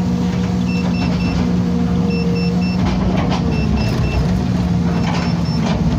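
Excavator's diesel engine running steadily under work, with a warning alarm beeping in short groups of three about every second and a half, and a few knocks near the middle.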